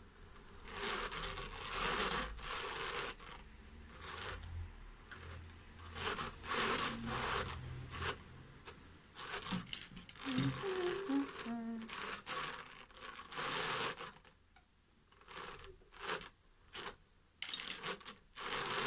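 Hand-cranked drum carder turning, its wire carding teeth catching and raking blue-faced Leicester wool in a run of short scratchy rasps as a base layer is laid onto the drum; the rasping pauses briefly about three-quarters of the way through.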